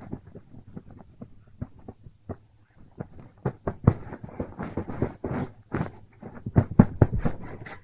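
A duvet being moved and rustled by a hand, with irregular soft thumps and fabric rubbing that grow busier and louder from about three seconds in.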